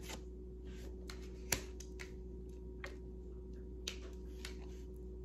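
Tarot cards being handled on a table: scattered light clicks and taps at an uneven pace, the sharpest about a second and a half in, over a steady low electrical hum.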